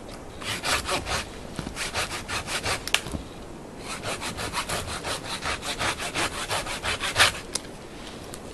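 Folding Coghlan's Sierra hand saw cutting a notch into a dead, dry tree trunk about 4 to 5 inches thick, in quick back-and-forth strokes. The sawing pauses briefly about three seconds in, resumes, and stops shortly before the end.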